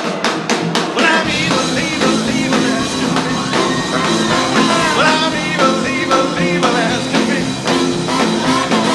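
Live rock band playing: drums alone at first, then about a second in the full band comes in with bass and a horn section.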